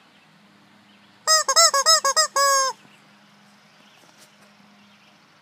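A squeezed rubber chicken squawking: a rapid run of about six short squeals, each bending up and back down in pitch, then one longer, steadier squawk, about a second in.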